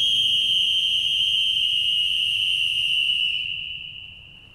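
A whistle blown in one long, shrill blast that starts suddenly, holds steady and then dies away over the last second or so: a last-resort call for rescue.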